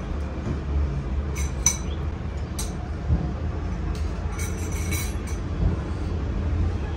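Metal utensils clinking against dishes a few times, in a small cluster near the middle, over a steady low rumble.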